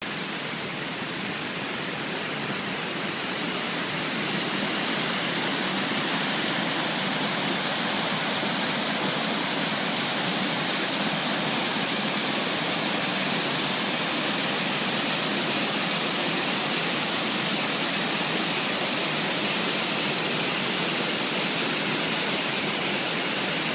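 Amegaeri Falls, a mountain waterfall, pouring in a steady, even rush of falling water. The level rises over the first few seconds, then holds steady.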